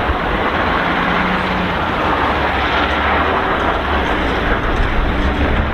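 Shacman heavy dump truck driving, its diesel engine running steadily: a low hum under an even wash of engine and tyre noise.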